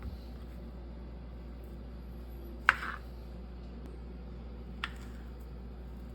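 Two sharp knocks of kitchen utensils over a steady low hum. The first, about a third of the way in, is louder and rings briefly; the second, near the end, is fainter.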